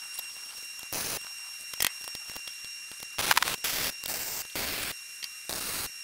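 Compressed air hissing from a hose-fed air tool in several short bursts, the longest near the end, over a steady faint hiss.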